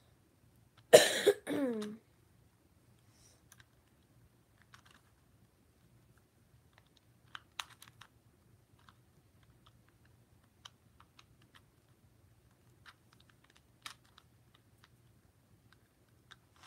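Plastic 3x3 Rubik's Cube layers being turned by hand: faint, irregular clicks and clacks every second or so. About a second in, a brief loud vocal sound in two quick bursts, like a cough, stands out above the clicking.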